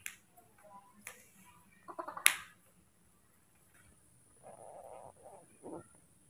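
Small clicks and taps from a baby monkey's hands and body moving on a plastic play mat, with a soft rustle later; the sharpest click comes about two seconds in.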